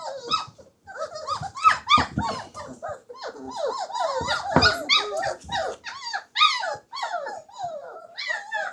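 A litter of four-week-old German shorthaired pointer × English pointer cross puppies whining and yelping, many small voices overlapping with rising and falling pitches, the excited clamour of puppies at feeding time.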